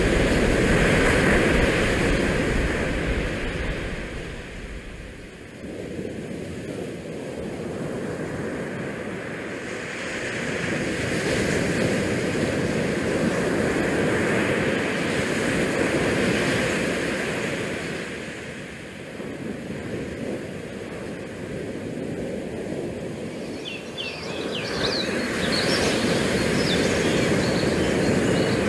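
Wind buffeting a GoPro action camera's microphone, a rushing noise with low rumble that swells and eases in gusts every several seconds.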